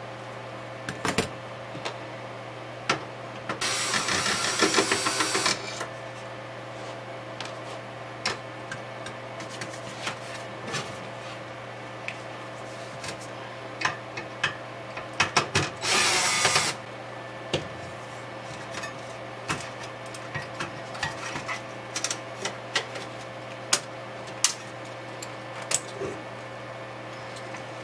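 Electric screwdriver whirring in two runs, one of about two seconds and a shorter one of about a second, backing out the screws that hold a circuit board in a metal synthesizer chassis. Scattered small clicks of screws and metal handling fall between the runs.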